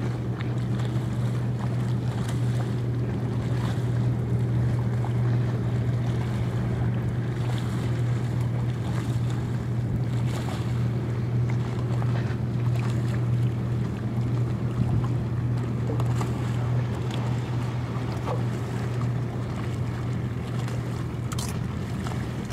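Motorboat engine running steadily, a low even hum, with wind noise on the microphone.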